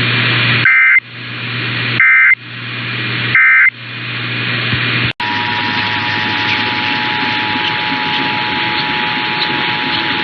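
Emergency Alert System end-of-message data: three short, shrill digital bursts about a second apart over radio hiss, marking the end of the test message. About five seconds in, the steady two-tone EAS attention signal starts and holds.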